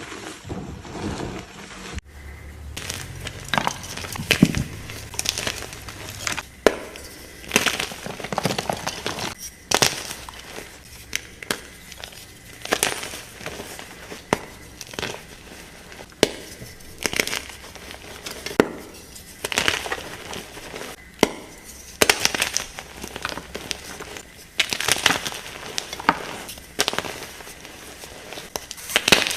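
Blocks of gym chalk being crushed in a bucket: a run of crunchy cracks and crumbling, with an abrupt change of sound about two seconds in.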